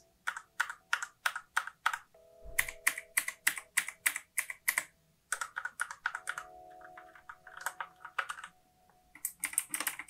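Typing on a Royal Kludge RK61 mechanical keyboard with red (linear) switches: quick keystrokes, several a second, in runs with short pauses.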